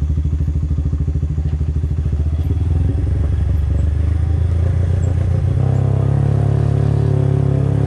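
Motorcycle engine running while riding, its rapid firing pulses heard close up. About five and a half seconds in, the note changes to a smoother, steadier hum as the engine speed changes.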